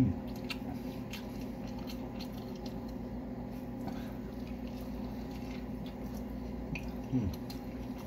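A person chewing and biting into a large, juicy homemade burger, with soft wet mouth sounds and faint clicks. A short hummed vocal sound comes at the start and again near the end, over a steady low hum.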